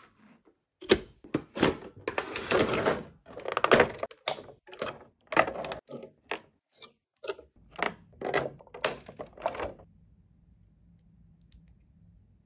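A quick, irregular run of sharp clicks and clatters with short rustling stretches, the sound of small objects being handled. It stops about ten seconds in.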